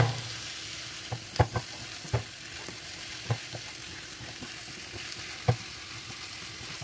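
Sliced onions with coriander, mint and curry leaves sizzling in hot oil in a frying pan while being stirred with a wooden spatula, which knocks sharply against the pan about six times.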